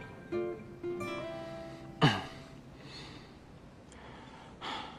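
Soft acoustic guitar background music, a few plucked notes held and left to ring. About two seconds in, a short sharp sound slides quickly down in pitch and is the loudest moment; a brief soft rush of noise follows near the end.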